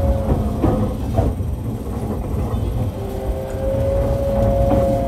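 Toyo GTO VVVF inverter and traction motor whine, heard from directly above the motors of a Tokyu 1000 series car as it runs. Several steady tones drop out and change pitch about three seconds in, over rail rumble, with a few clicks of wheels over rail joints in the first second or so.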